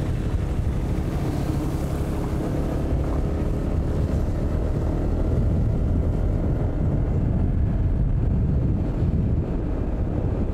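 Motorbike riding along at a steady speed: the engine running under wind rush on the microphone.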